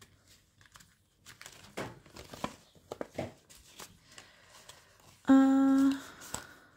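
Paper banknotes and envelopes rustling and crinkling as they are handled. About five seconds in comes a loud, steady, hum-like pitched tone lasting under a second.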